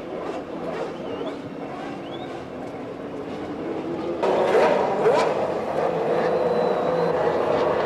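Formula One race car engines running at high revs, with the pitch swinging up and down. The sound jumps much louder about four seconds in.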